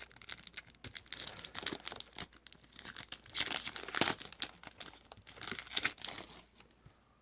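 Foil trading card pack being torn open and crinkled by hand, with irregular rustling and crackling that dies away near the end.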